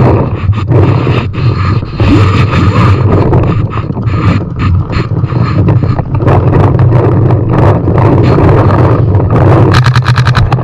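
A paintball marker firing, a few single shots and then a rapid string of about ten shots a second near the end, over a steady low rumble of wind and handling noise on the camera mounted on the gun.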